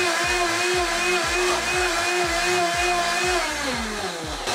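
Blendtec blender motor running at high speed with its jar of water whipped to near boiling by the blade, a steady whine that falls in pitch as the motor spins down about three and a half seconds in.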